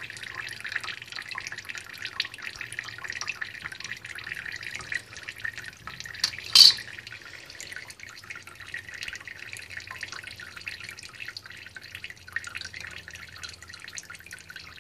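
Thin stream of tap water from a kitchen faucet trickling and pattering into the sink below, with fine irregular drips. One short, sharp knock about six and a half seconds in is the loudest sound.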